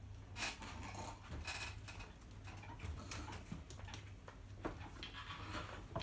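Faint, scattered rustles and soft breathy sounds of a person shifting in her seat and reaching across a desk, over a steady low hum.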